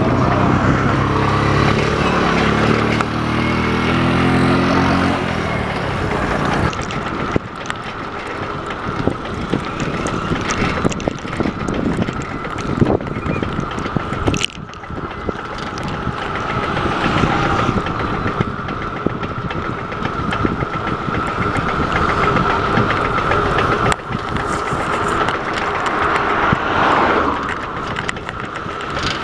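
A motor vehicle engine runs close by, rising in pitch over the first six seconds or so. About seven seconds in the sound changes abruptly to wind and tyre noise from a bicycle rolling on tarmac, with a steady high hum.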